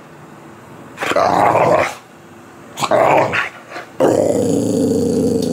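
White boxer dog growling while play-wrestling with a person: two short growls of about a second each, then one long steady growl starting about four seconds in.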